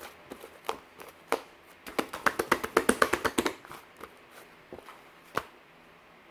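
Sharp taps and clicks of something being handled at close range, with a quick run of them about two seconds in and one last click near the end.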